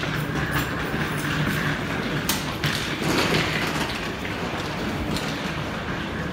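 Train station platform noise: a steady low hum and rumble from trains, with scattered clicks and a sharp knock just over two seconds in.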